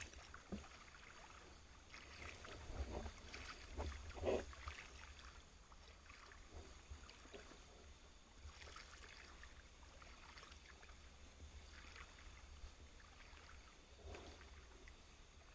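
Faint, muffled underwater ambience: a low rumble with scattered soft clicks and knocks, the loudest knock about four seconds in.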